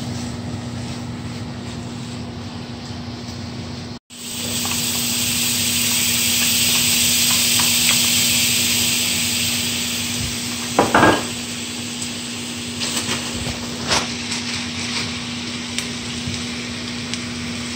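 Peppers and onions sizzling softly in a skillet as they are stirred. After a break about four seconds in, garlic butter on a hot griddle pan sizzles with a loud, steady hiss, with a few clicks of a utensil against the bowl and pan.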